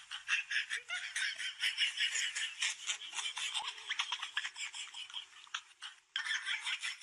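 A kitten's claws scrabbling and scratching on a wooden stair step as it tries to climb up. It is a rapid run of scratchy strokes that breaks off briefly about six seconds in.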